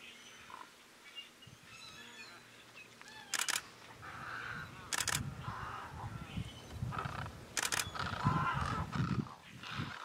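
Great egrets and other wading birds giving low, harsh croaking calls, thickest in the second half, with higher squawks mixed in. Three sharp clicks cut through in the middle.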